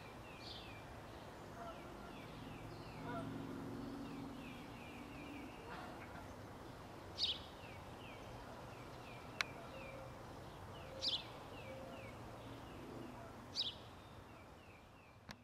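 Geese honking, a run of faint repeated calls with three louder, sharper calls about seven, eleven and thirteen and a half seconds in. A single sharp click comes midway.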